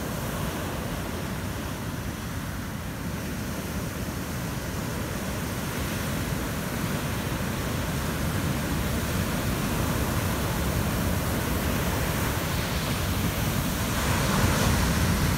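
Heavy ocean surf breaking on a sand beach: a continuous rushing of large waves and white water. It grows steadily louder and swells near the end as a big wave breaks.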